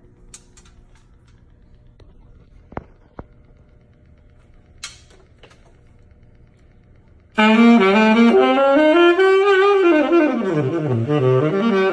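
Selmer Varitone tenor saxophone played unamplified, its pickup's amplifier not yet sounding. After a few faint knocks and clicks, a melodic phrase starts loudly about seven seconds in, stepping down to low notes and climbing back to a held note near the end.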